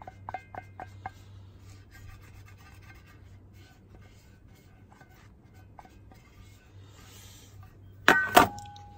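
Tabletop handling noise: a few light ringing taps about three a second at the start, faint rubbing, then a louder clatter about eight seconds in that leaves a short ringing tone, over a low steady hum.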